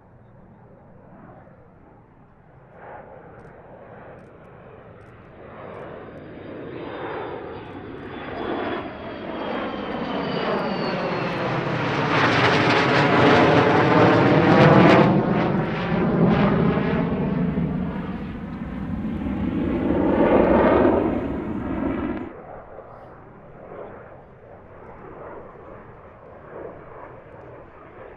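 Sukhoi Su-22 Fitter's single AL-21F-3 turbojet on a low display pass. The jet noise swells, with a high whine falling in pitch as the aircraft approaches, is loudest as it goes by, then drops off sharply about three-quarters of the way through to a fainter rumble.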